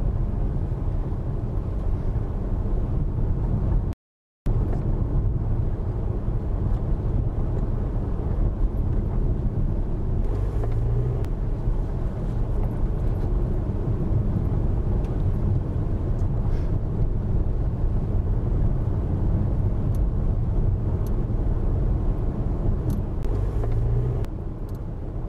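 Car driving slowly on a narrow road, heard from inside the cabin through a windscreen dashcam: steady engine and tyre rumble. The sound cuts out completely for a moment about four seconds in.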